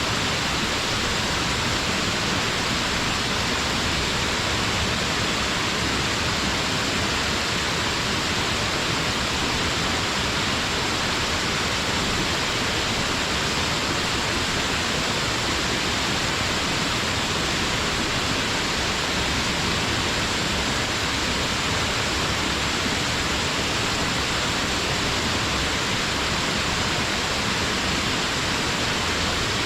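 Waterfall: a steady, unbroken rush of falling water, even in level throughout, with most of its weight in the upper hiss.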